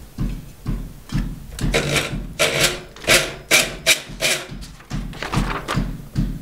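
Rhythmic rubbing or scraping strokes, about two a second, by a hand working at a table. They are loudest and sharpest in the middle stretch.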